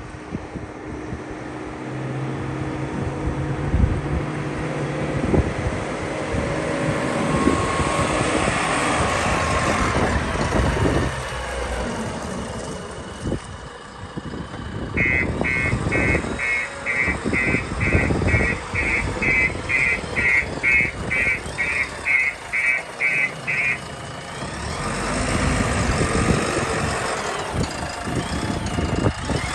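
JCB 3DX backhoe loader's diesel engine running, with a high warning beeper sounding about twice a second for roughly nine seconds in the middle.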